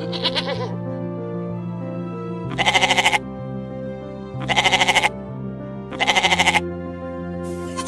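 Repeated bleating, about one quavering call every two seconds, over steady background music.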